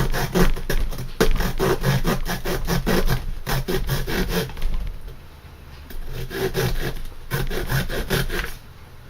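Small multi-tool saw blade (Leatherman Sidekick) cutting a 6mm hardwood dowel: quick back-and-forth sawing strokes, a pause about halfway through, then more strokes.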